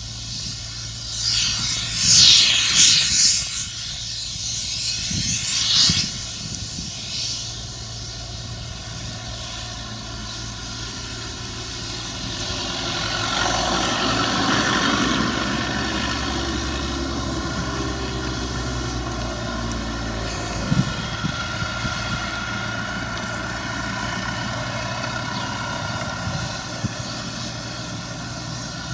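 Farm machinery engine running steadily, with loud hissing bursts in the first few seconds and a rise in level around the middle.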